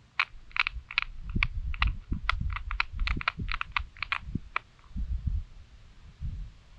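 A rapid, irregular run of small sharp clicks and taps, a few a second, that stops about two-thirds of the way through, with dull low thumps underneath.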